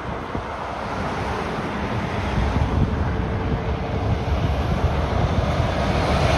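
Road traffic passing close by: a car, then a MAN articulated lorry approaching, its diesel engine and tyres rumbling louder and louder toward the end, with wind buffeting the microphone.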